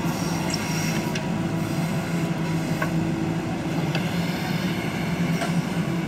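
JCB 3DX backhoe loader's diesel engine running steadily under load as the backhoe digs a trench, with a few faint sharp clicks from the machine spread through it.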